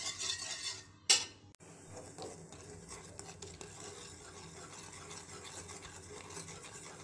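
Metal spoon stirring agar-agar jelly liquid in a metal pot on the stove, scraping round the bottom of the pot. About a second in comes one sharp knock, after which the stirring goes on more quietly and steadily.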